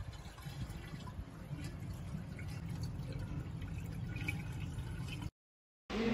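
Hot-spring water running and dripping into a wooden foot bath, a steady watery noise with small splashes; it cuts off suddenly about five seconds in.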